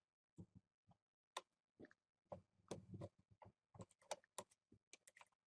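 Faint, irregular clicks and small scrapes of a small Phillips electronics screwdriver turning out a screen-bezel screw on a laptop's display frame. The clicks come thicker in the second half.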